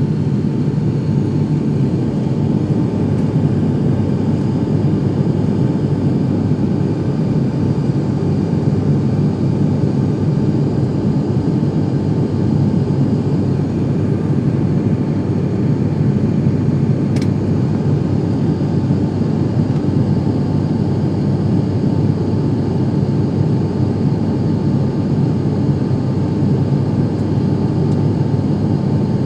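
Turboprop airliner's engine and propeller drone heard from inside the cabin in flight: a loud, steady rumble with a thin steady hum above it. A single brief click sounds about seventeen seconds in.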